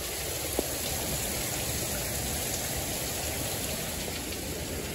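Steady rain falling outside a screened window, with one short click about half a second in.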